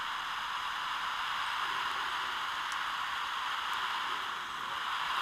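Steady hiss of static from a radio-telemetry receiver's speaker while it listens for a weak transmitter signal, with no clear beeps coming through.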